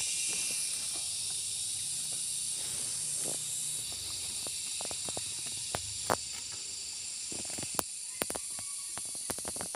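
A steady high hiss, with scattered sharp clicks and snaps in the second half as a hand knife cuts and pulls Malabar spinach stems.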